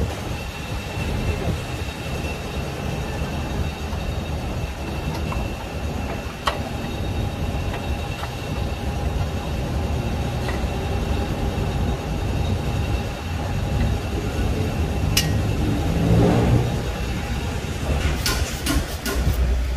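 Steady low mechanical rumble with a faint steady whine above it, and occasional sharp metallic clicks from hand tools at work in a car's engine bay, several in quick succession near the end.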